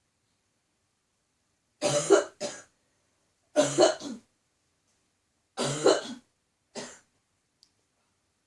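A woman coughing repeatedly, in four short bouts over about five seconds, some with two coughs in quick succession: a tickly cough.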